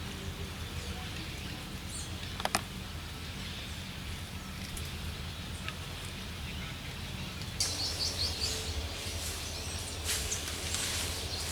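Outdoor background with a steady low rumble and one sharp click about two and a half seconds in. From about two-thirds of the way through, a bird chirps repeatedly in short, high notes.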